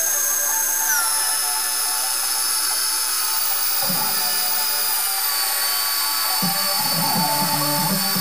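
A 1 hp electric drill powering a homemade wood lathe, running with a high steady whine that settles slightly lower about a second in. A rougher, lower cutting sound from the tool carriage biting into the spinning ash log comes in around four seconds in and again for the last couple of seconds.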